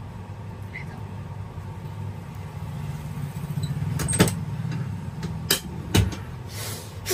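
Head massage with a few sharp slaps or knocks from the hands, about four, five and a half and six seconds in, the last one the heaviest. A steady low rumble of background noise runs underneath.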